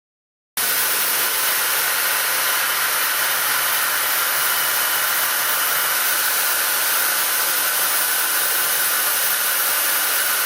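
A CNC machining centre running a mold-polishing pass, a steady hissing machine noise that starts abruptly about half a second in.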